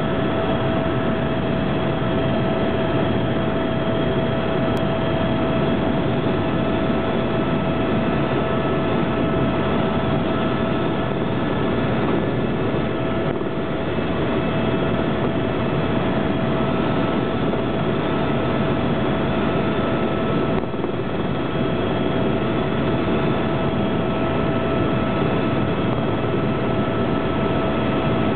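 Helicopter in flight, heard from aboard: a steady drone of rotor and engine with a constant whine running through it.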